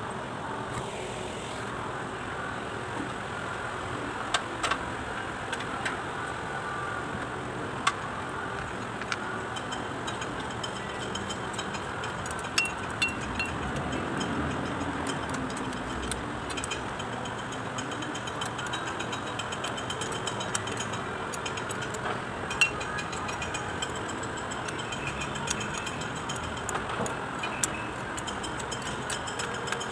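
Ratchet wrench clicking in short, scattered runs as the bolts on a Kubota Bultra B16 tractor's front axle housing are tightened, over steady background noise.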